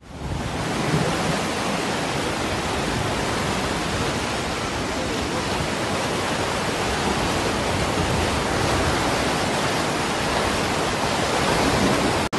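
Flash-flood torrent of muddy water rushing through a street: a steady, loud roar of water with no letup.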